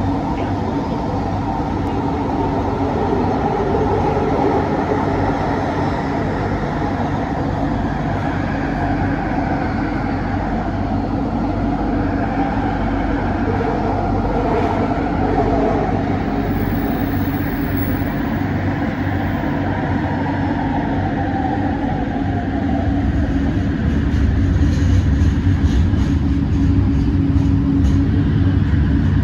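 A Bombardier Innovia ART 200 light-metro train running, heard inside the passenger car: a steady rumble with a held hum underneath. A faint wavering whine comes and goes in the middle, and the low rumble grows louder near the end.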